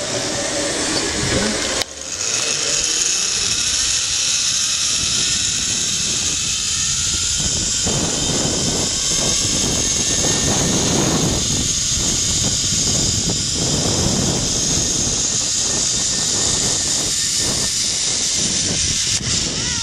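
Zip-line trolley pulleys running along the steel cable, a steady high whirring whine that slowly rises in pitch, with wind buffeting the microphone.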